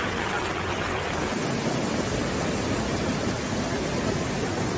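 Muddy floodwater rushing down a street in a fast torrent: a steady, loud rushing noise.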